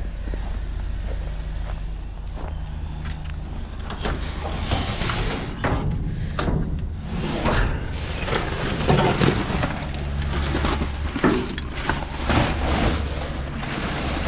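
A steady low engine hum runs underneath, with scattered knocks and rustles of cardboard, paper and plastic trash being handled in a dumpster.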